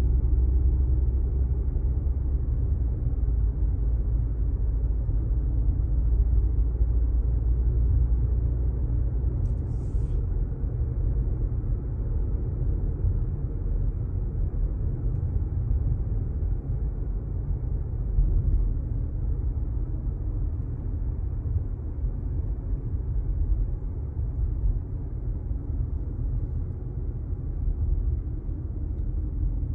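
Steady low rumble of a car driving, its engine and tyre noise heard from inside the cabin, with one faint click about ten seconds in.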